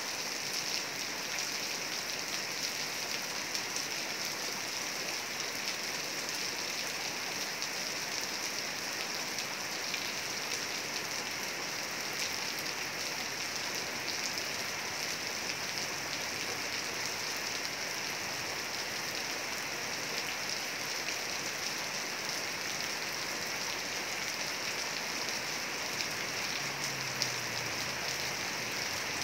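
Heavy rain falling steadily, a dense even hiss of drops striking surfaces.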